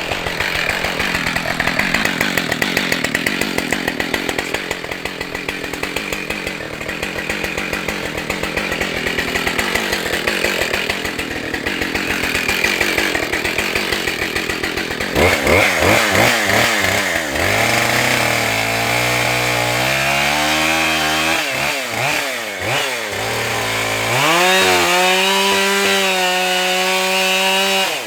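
Husqvarna 572XP two-stroke chainsaw running. For about the first half it runs rough and unsteady, then it is revved up and down in several short blips. Near the end it is held at high revs for a few seconds before dropping back.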